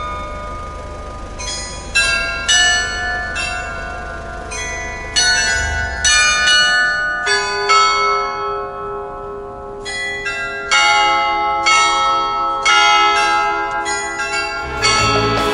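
Carillon of the Loreto clock tower in Prague playing a slow tune: single bell notes struck one after another, each ringing on under the next.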